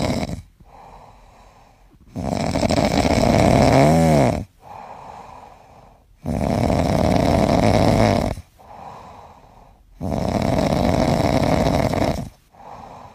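Tabby cat snoring in slow, regular breaths: three long, loud snores about four seconds apart, each followed by a quieter breath.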